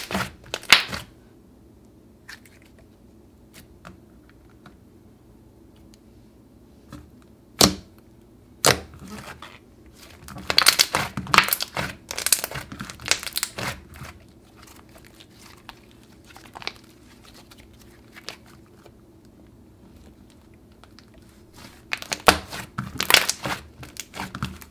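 Thick clay slime being squished, kneaded and poked by hand, crackling and clicking. Scattered crackles give way to a longer run of crackling about halfway, another near the end, and quiet stretches between.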